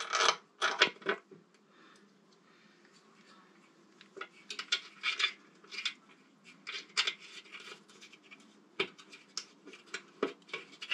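Light metallic clinks, scrapes and rustles of hands fitting bolts to a motorcycle's front fender at the fork leg. A cluster of sharper clinks comes right at the start, then scattered ones through the rest.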